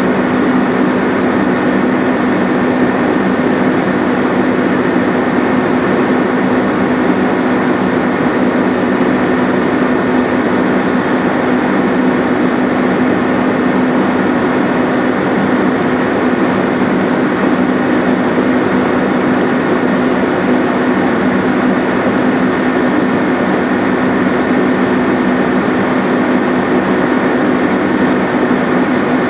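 Engine of a small boat running steadily under way: a loud, constant hum with a few steady tones over an even rush of engine and water noise.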